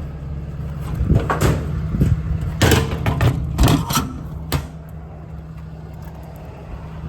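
6.7 Cummins diesel idling steadily. Several loud clanks and knocks sound between about one and four and a half seconds in.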